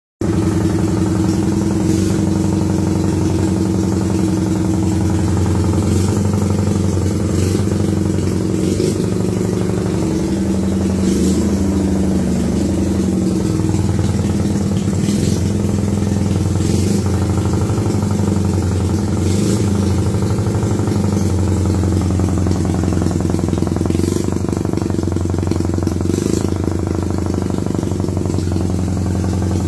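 Honda C70's single-cylinder four-stroke engine idling steadily, exhausting through its aftermarket muffler.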